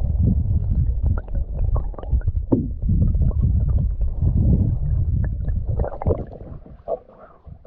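Muffled underwater sound from a camera held below the surface of a river beside a moving canoe: a dense low rumble of water against the submerged microphone, with many small clicks and knocks. Around five to six seconds in the camera comes out of the water and the rumble falls away.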